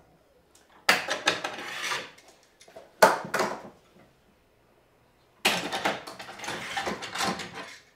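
Maple boards being shifted and knocked together on a workbench: three bursts of clattering knocks and sliding, about a second in, at three seconds and from five and a half seconds.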